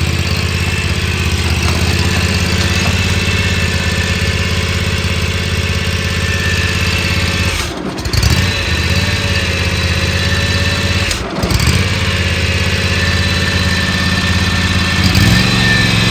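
Exmark Ultracut 48 commercial mower engine running steadily. About 8 and about 11 seconds in its speed dips briefly and then recovers.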